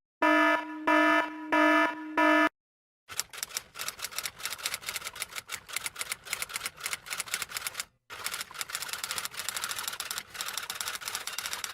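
Sound effect of four short buzzing beeps, then rapid typewriter-like clicking for about eight seconds, broken by a brief pause partway through.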